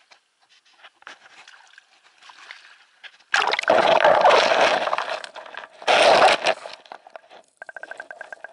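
Two loud rushes of water, the first about two seconds long and the second about a second, with faint scattered clatter before them and a rapid ticking near the end.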